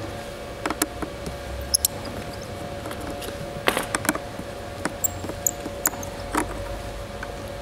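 Scattered small clicks and a few short high squeaks of a screwdriver working the screws out of a Panasonic Toughbook CF-30's bottom plate, over a steady hum.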